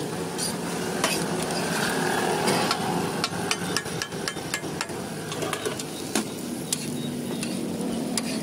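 Metal spatula scraping and tapping on a hot iron griddle as a rolled dosa is chopped into pieces, with a quick run of sharp taps in the middle.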